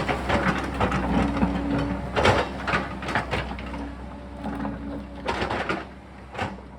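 Excavator engine running steadily under irregular knocks and scraping of rock and soil, the whole sound fading out toward the end.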